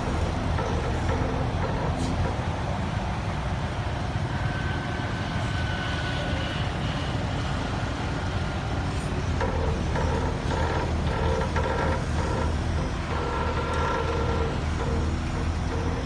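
Diesel engines of heavy construction machinery, a crane and an excavator, running steadily, with a faint whine coming and going.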